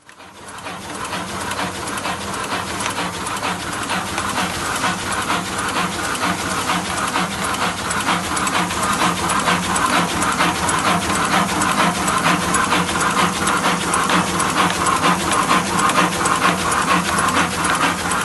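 Vertical form-fill-seal packaging machine with a multihead weigher running: a steady mechanical hum under fast, even clicking.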